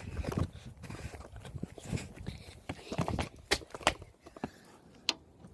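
Irregular footsteps and knocks of a handheld phone being moved about while someone walks, with low handling rumble. The sounds thin out about four seconds in, leaving one sharp click near the end.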